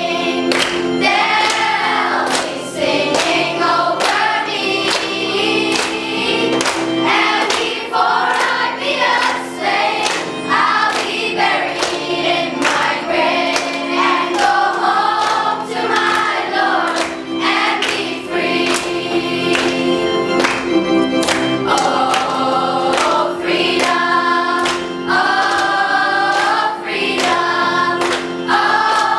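Choir singing over instrumental accompaniment with a steady beat.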